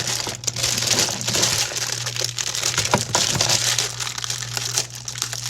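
Styrofoam packing and plastic wrapping rustling, crinkling and crunching with small cracks as they are handled and pulled out of a box.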